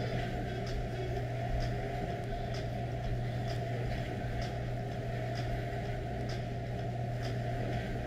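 A person doing jumping jacks on carpet: faint soft ticks about twice a second, in time with the jumps, over a steady low hum.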